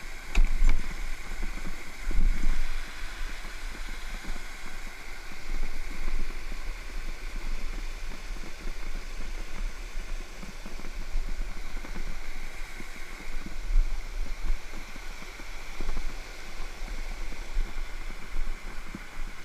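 Steady rush of a waterfall's falling water, with low rumbling buffets and bumps on the GoPro's microphone coming and going.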